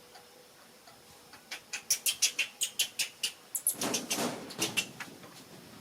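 Baby monkey giving a rapid run of short, high squeaks, about five a second, with a brief louder, noisier burst about four seconds in.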